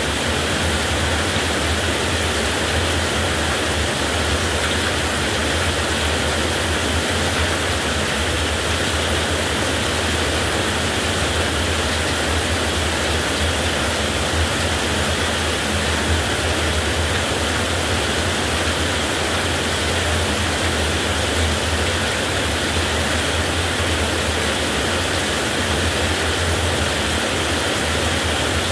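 Heavy rain falling steadily: an even, unbroken hiss with a constant low rumble beneath it and no thunder claps.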